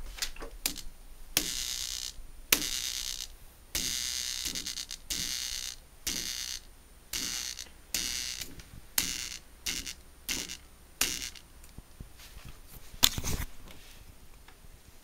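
Shimano ST-2300 STI shift-brake lever on a road bike giving a short high-pitched buzzing rattle each time the handlebar is tapped, about a dozen times with one hardest knock near the end. The buzz is an abnormal noise coming from inside the lever.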